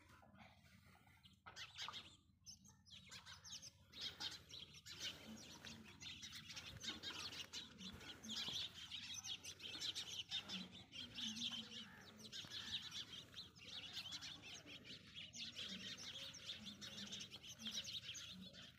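Many small birds chirping at once in a dense, overlapping chatter that grows fuller a few seconds in.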